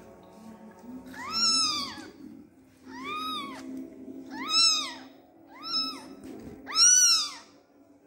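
Newborn Persian kittens mewing: five high, thin cries about a second or so apart, each rising and then falling in pitch, the loudest near the end. These are the distress calls of kittens that their mother will not nurse.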